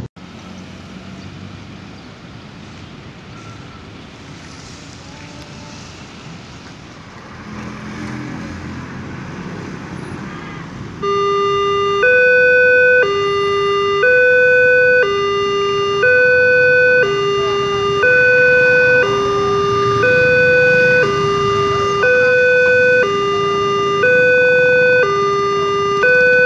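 Low road noise from passing motorbikes. Then, about eleven seconds in, a railway level-crossing warning alarm starts: a loud electronic two-tone signal that alternates between a low note and a higher note about once a second. It warns that a train is coming and the barriers are about to close.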